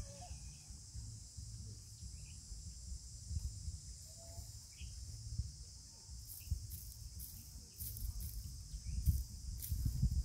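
Steady high-pitched drone of insects, with a low uneven rumble that grows louder near the end and a few faint short chirps.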